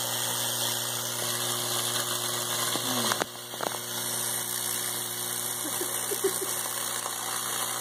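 High-voltage arc from a microwave oven transformer burning into a potato: a steady electrical buzz with a hissing crackle. It falters briefly about three seconds in, then carries on.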